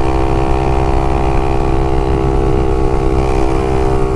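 Honda CBX 250 Twister's single-cylinder four-stroke engine running through a LeoVince aftermarket exhaust, holding a steady note while the bike is ridden.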